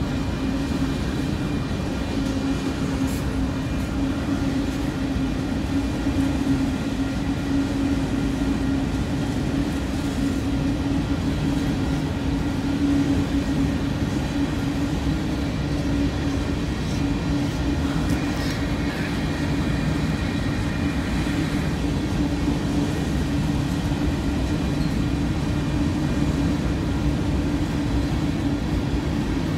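Freight train rolling past at steady speed: a continuous rumble of cars on the rails, with a constant low hum.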